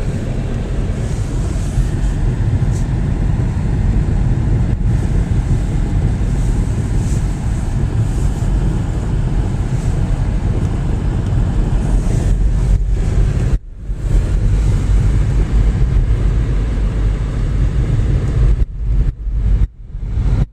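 Car driving, heard from inside the cabin: a steady low rumble of engine and road noise. The sound cuts out briefly once about two-thirds of the way through and several times near the end.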